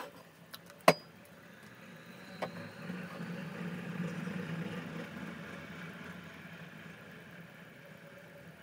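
A sharp clink about a second in, then a soft scraping rumble that swells and fades over a few seconds as mascarpone cream is spread over a cake layer on a plate.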